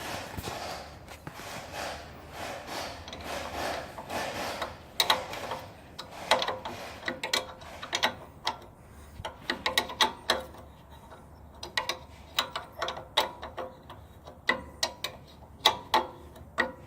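Hand ratchet wrench clicking as a fastener is worked loose, a dense run of rapid clicks for about the first five seconds. After that come scattered sharp metal clicks and clinks of tool work.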